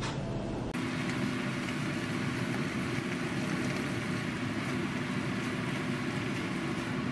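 Leafy greens stir-frying in a hot pan: steady sizzling with a low hum underneath, starting about a second in.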